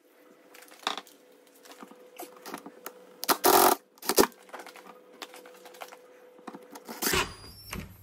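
Cordless drill-driver run in short bursts, about half a second at its longest, to fix a small plastic mounting plate to a wall with screws. Clicks and rattles from handling the screws and the tool come between the bursts.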